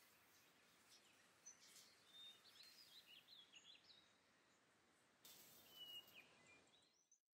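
Faint outdoor ambience: small birds chirping in short, scattered calls over a soft hiss, with a brief swell of noise about five seconds in. The sound cuts off suddenly near the end.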